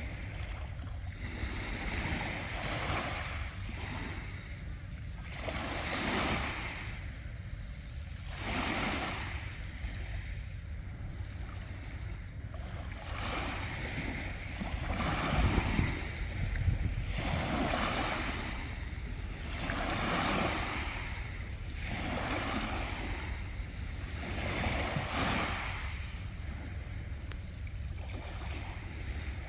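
Sea waves surging and washing over a beach of round pebbles, the wash swelling every two to three seconds over a steady low rumble.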